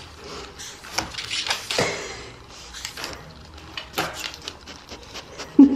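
Dogs' paws and claws shuffling, tapping and scratching at a door on a hard floor: irregular clicks and scuffles.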